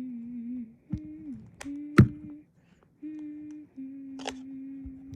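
A person humming a few long, steady notes with short breaks between them. Several sharp clicks and knocks cut in, the loudest about two seconds in.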